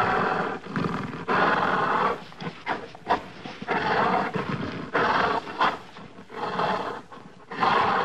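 An angry gorilla roaring: a run of short, loud roars, about one a second.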